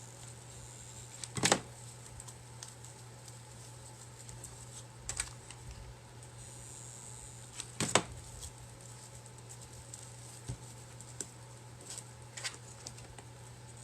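Scattered small clicks and taps of hands working rope and a hot glue gun around a clay pot, with three sharper knocks spread through, over a steady low hum.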